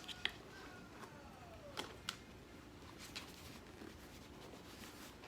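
Faint handling of a plastic water jug and its insulated sleeve: a few light clicks and taps, and a squeak that falls in pitch about a second and a half in.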